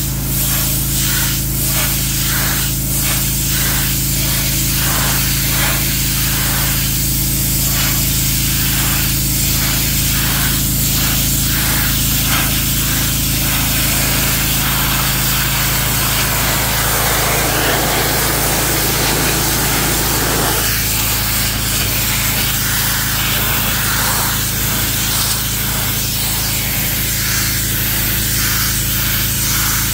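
Pressure washer running, its wand blasting a high-pressure water jet onto a concrete floor: a steady low drone from the machine under a loud, constant spray hiss. For the first dozen seconds the hiss swells and fades about twice a second.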